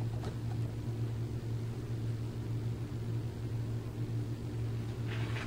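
Steady low machine hum, with a few fainter steady tones above it.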